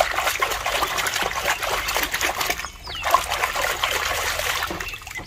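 Water trickling and splashing as mud is rinsed off a toy, pausing briefly just under three seconds in.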